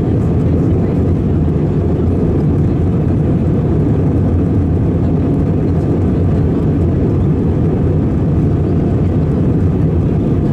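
Steady low cabin roar inside an Airbus A320-216 airliner: its CFM56 jet engines and the airflow past the fuselage, heard from a window seat.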